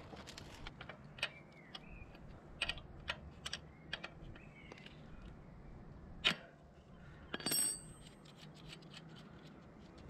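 Scattered light clicks and clinks of a metal spanner working a chain-adjuster lock nut on a motorcycle swingarm, with one louder knock about six seconds in and a short metallic ring about a second later.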